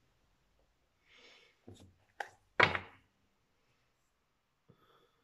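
Tarot cards being handled and set down on a table: a soft brushing sound, then three sharp taps about two seconds in, the last one the loudest.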